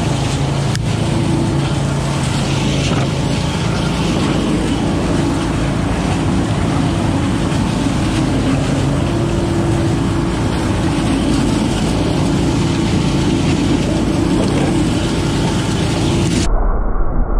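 Billy Goat 20 hp leaf vacuum running steadily at full throttle, its engine and impeller sucking dry leaves through the large intake hose with a constant rushing. About a second before the end the sound suddenly turns muffled and deeper.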